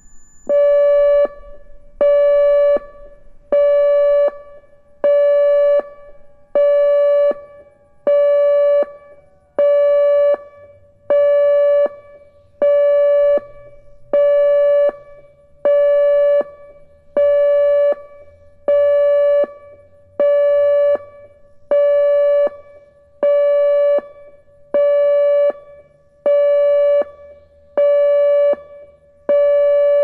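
ATI HPSS16 electronic siren sounding its Pulse tone on a test: a loud, steady mid-pitched tone switched on and off, a burst of under a second about every second and a half, with no rise or fall in pitch.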